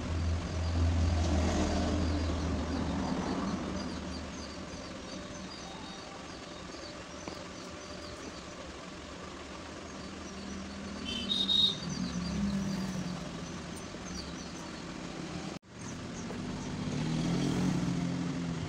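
Background motor-vehicle engine noise, louder near the start and again near the end, with faint bird chirps and one louder chirp a little past the middle. The sound drops out completely for a moment about two-thirds of the way through.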